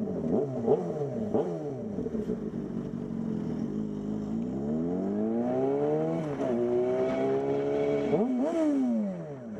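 Car engine accelerating, its pitch climbing steadily and then dropping sharply at each gear change, about six and eight seconds in, after some quick rises and falls at first.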